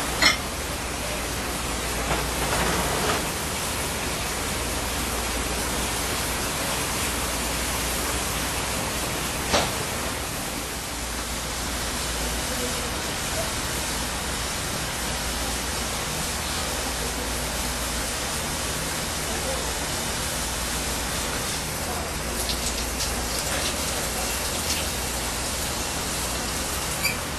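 A pot of liquid boiling hard over a gas burner: a steady bubbling hiss, with a couple of brief sharp knocks.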